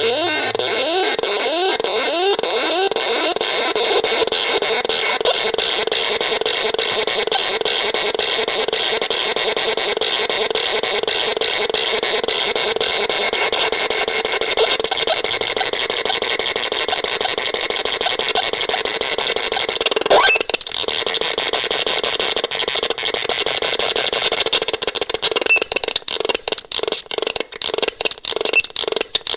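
Vapesonic RX 21 abstract radio sound unit putting out electronic noise: a dense hiss laced with steady high tones and rapid pulsing, and falling sweeps in the first few seconds. The sound drops out briefly about two-thirds through, then breaks into choppier, chirping pulses near the end.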